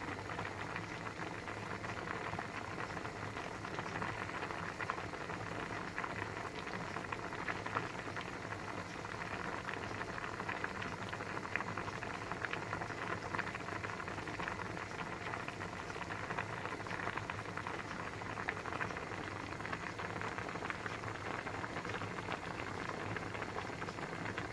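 Pasta boiling in a pot of water: a steady rolling boil of bubbling and fine crackling.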